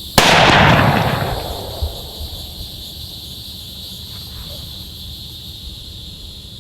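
A single 6.5 Creedmoor rifle shot, a sharp blast whose echo rolls away over about a second.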